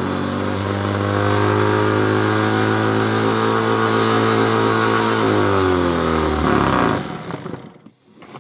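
Craftsman variable-speed rotary tool spinning a magnetic reduction gear train of magnet wheels at about 10,000–15,000 RPM: a loud, steady whine that winds down in pitch and stops about seven seconds in.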